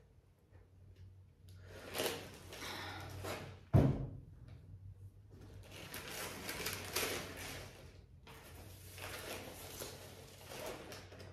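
Damp kraft paper wrapping rustling and crinkling in several long stretches as it is pulled open from around a plant in a cardboard box, with one sharp thump a little before four seconds in.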